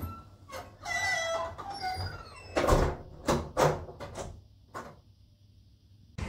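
Apartment front door swinging shut: a drawn-out creaking squeal, then heavy thuds as it closes and latches, followed by a few lighter clicks.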